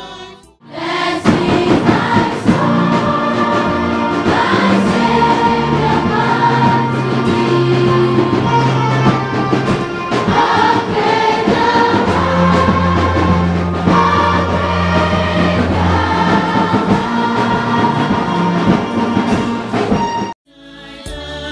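Music: a choir singing over instrumental backing with a bass line and a beat. It starts about half a second in and cuts off abruptly shortly before the end.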